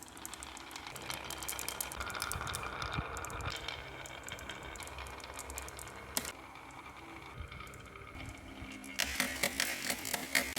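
Marbles rolling and clattering down a HABA wooden marble-run track, with many quick clicks as they hit the wooden pieces. The clicking gets dense near the end.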